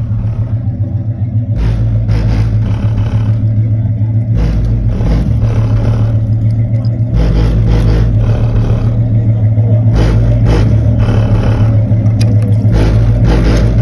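Bass-heavy music played loud through a car stereo's Kicker L5 Solo-Baric 10-inch subwoofer, driven by a Kicker ZR360 amplifier, heard from outside the car. A deep bass note comes in for a second or two every few seconds over a steady low bass line.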